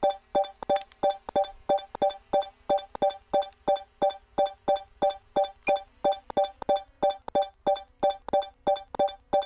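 Background music: a synthesizer or electric-piano line of short, evenly repeated notes, about three a second.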